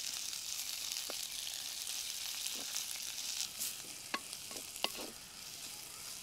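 Sliced onions sizzling in hot coconut oil in a clay pot as a wooden spatula stirs them, a steady hiss with a few sharp clicks about four and five seconds in. The sizzle eases slightly near the end.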